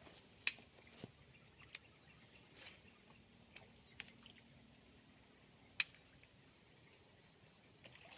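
Insects shrilling in a steady, high-pitched drone, with two sharp clicks, one about half a second in and one near six seconds.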